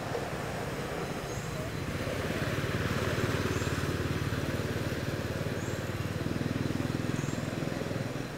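A motor vehicle engine running with a steady low hum, growing louder through the middle. A few faint short high chirps come about every two seconds.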